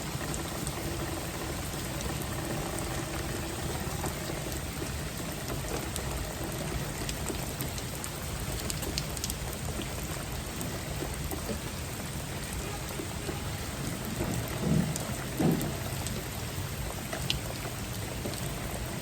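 Steady rain falling, a dense even patter with scattered drop ticks. Two short, louder low thumps stand out about three quarters of the way through.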